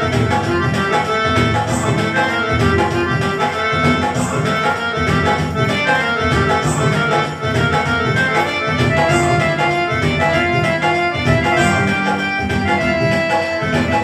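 Casio CT-X9000IN keyboard playing its Bhangra Type 1 rhythm style: a steady Bhangra drum pattern with accompaniment and a melody line, with an accent about every two and a half seconds.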